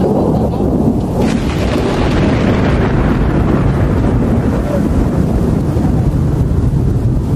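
Thunder rumbling continuously, with a rain-like hiss coming in sharply about a second in.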